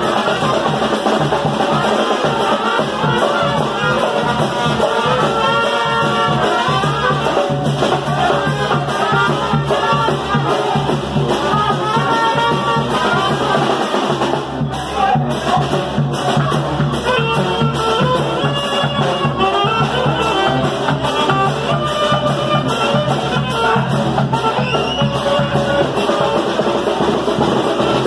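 Live brass band playing, trombones and trumpets over a steady drum beat.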